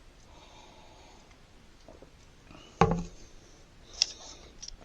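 Quiet room tone broken by one sharp knock a little before three seconds in, followed by a few fainter clicks.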